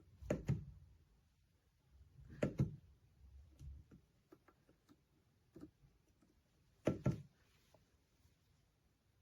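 Three short bursts of knocks, each a quick pair of impacts, with a faint rumble around them: about half a second in, about two and a half seconds in, and about seven seconds in.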